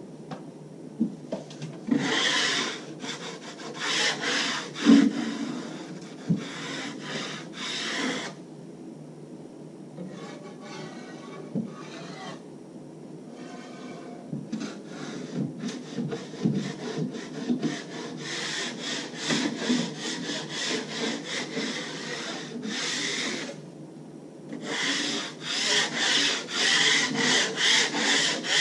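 Steel finishing blade scraping joint compound along a plasterboard joint, in runs of quick rough strokes with pauses between them, while a topcoat is put on the joint.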